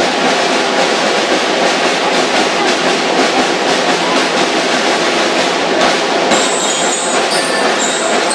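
School drum and lyre corps playing: a dense, loud clatter of snare drums with metal bell lyres. About six seconds in, high ringing bell tones come through more clearly.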